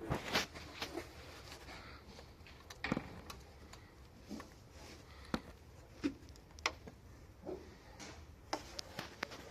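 A series of irregular clicks and knocks, about a dozen, spread unevenly with short gaps.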